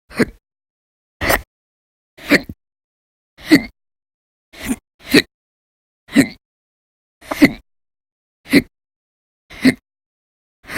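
A woman hiccuping hard and repeatedly, about one hiccup a second, ten or so in a row, with two coming close together near the middle.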